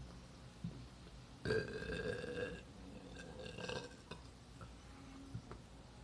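A boy burping: one long burp lasting about a second, then a shorter, fainter one.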